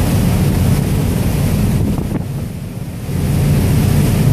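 Wind buffeting the microphone on the deck of a moving ferry, over the low rush of the boat running through the water. The wind eases for about a second near the middle, then picks up again.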